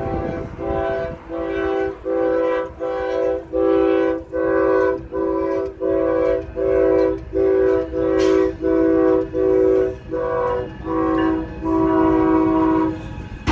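Diesel freight locomotive's multi-tone air horn sounding a long run of short, even blasts, about two a second, and stopping just before the end. This rapid string of short blasts is the emergency warning, sounded at a semi truck stuck on the crossing ahead.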